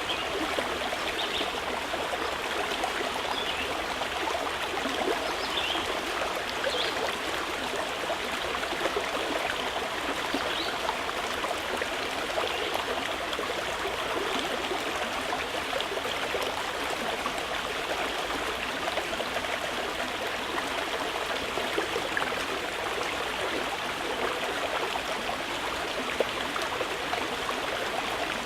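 Stream water flowing and trickling steadily, an even rushing babble.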